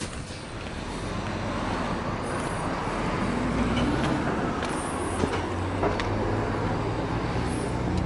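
A motor vehicle's engine and road noise, a steady low rumble that grows louder over the first few seconds and then holds. A few faint clicks sound over it.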